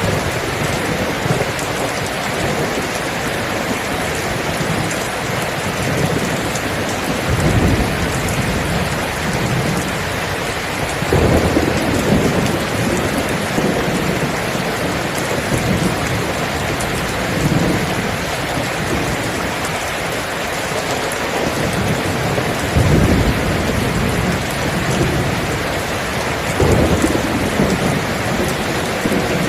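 Heavy, steady rain falling, with rolls of thunder rumbling low several times (about a second after the start of the second third, and again near the middle and near the end).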